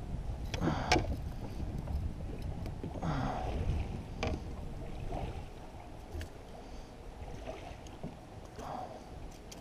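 Scattered knocks and rustles of hands handling fishing gear and a freshly caught small smallmouth bass inside a hollow plastic kayak, over a steady low rumble of wind on the microphone. The handling is busiest in the first half and dies down toward the end.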